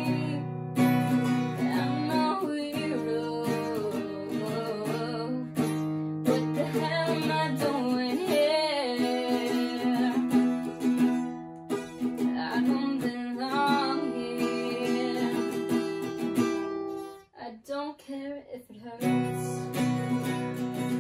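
Yamaha cutaway acoustic guitar strummed in chords under a young woman's singing. About seventeen seconds in the playing drops away briefly, then the strumming comes back in full.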